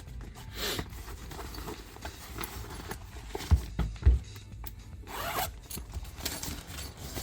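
Zipper on a nylon tool storage bag being pulled open in long rasping strokes, with two sharp knocks in the middle as things inside the bag are handled.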